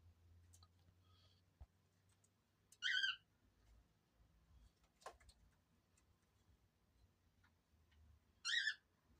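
Two short, warbling, high-pitched bird chirps about five seconds apart. Faint clicks between them, with one sharper tick about halfway.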